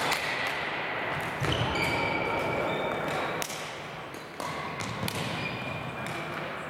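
Badminton rallies: rackets striking shuttlecocks in irregular sharp knocks, with players' footsteps on the wooden court floor, echoing in a large sports hall.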